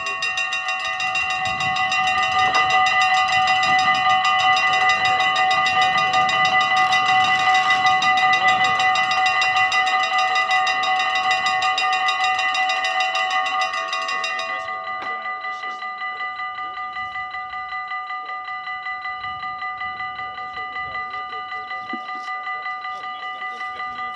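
Dutch level-crossing warning bells ringing rapidly and steadily as the barriers lower. A bit more than halfway through, the ringing drops to a quieter, duller level and goes on steadily.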